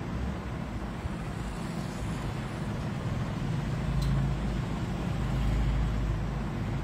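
Steady low rumble of background noise, swelling a little about four seconds in and again near the end, with one faint tick about four seconds in.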